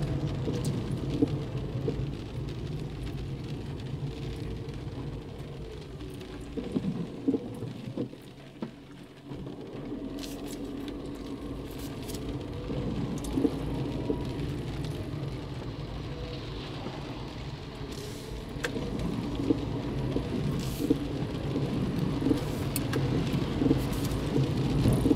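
Car driving in heavy rain, heard from inside the cabin: a steady engine and tyre hum on the wet road, with raindrops ticking on the windshield and roof. The hum drops away for about a second around eight seconds in, then picks up again.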